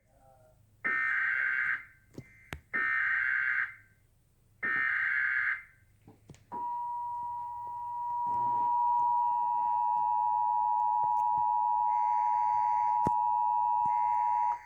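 Emergency Alert System broadcast opening a tornado warning: three roughly one-second bursts of SAME digital header data, warbling data tones, then the two-tone EAS attention signal (853 and 960 Hz) held steady for about eight seconds before it cuts off. Fainter data bursts sound over the tone near the end.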